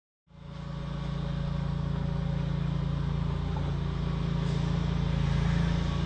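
An engine running steadily with a low, even hum, fading in from silence about a quarter second in.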